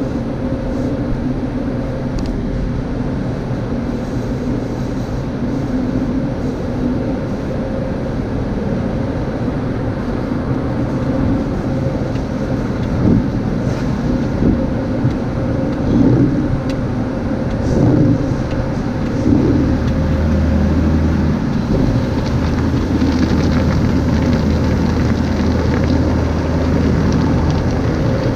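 Car wash tunnel machinery heard from inside the car: foam brushes and cloth scrubbing over the windshield and body, with water spraying and a steady machine hum. A few louder thumps come in the middle, and a deeper steady hum joins about two-thirds of the way through.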